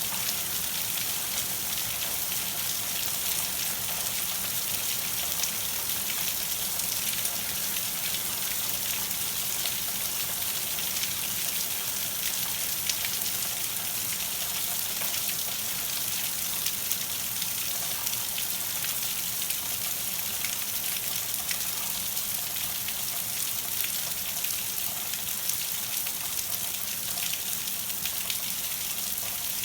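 Rain falling steadily during a storm, a dense patter of drops with an even hiss.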